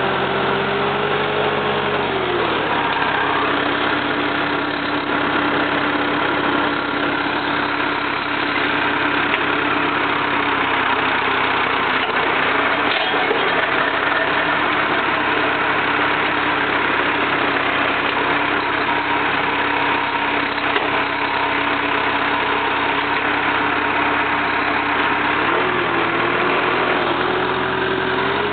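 Jacobsen mower's four-cylinder Perkins diesel engine running steadily. Its pitch drops a little about two seconds in and rises again near the end.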